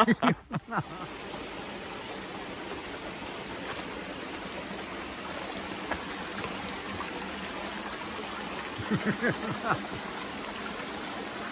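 Steady rushing of running water, with a few short voice sounds about nine seconds in.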